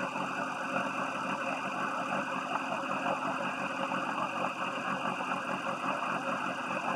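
Atomic 4 inboard gasoline marine engine idling steadily while it cools down.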